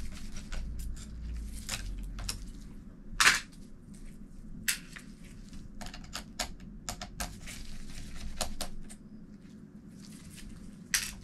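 Gloved hands handling small laptop parts: scattered clicks, taps and light scrapes as the SSD drives are disconnected and lifted out of the open laptop chassis, with a sharper click about three seconds in.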